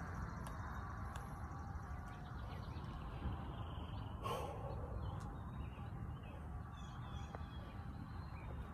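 A man blowing out one sharp, hissing breath about four seconds in, mid-set of resistance-band curls, over steady low background noise. Faint bird chirps come near the end.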